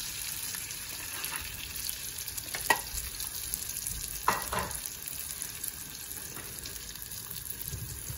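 Beaten egg frying in a pan of corned beef, tomato, onion and pepper in sunflower oil: a steady sizzling hiss, with a few sharp clicks about a third of the way in and again near the middle.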